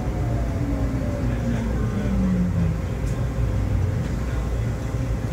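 Norristown High Speed Line car running, heard from on board: a steady low rumble with a motor whine that falls in pitch over the first three seconds.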